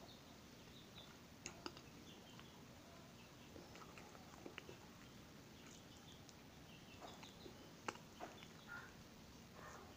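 Faint mouth sounds of a person chewing soft wheat bread: scattered clicks and smacks, the sharpest a little before the end, over a quiet background with faint bird chirps.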